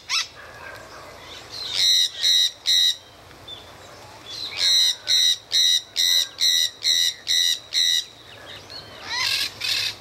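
Parakeets calling with harsh, screeching calls in quick series: three about two seconds in, a run of about nine from the middle on, and a few more near the end.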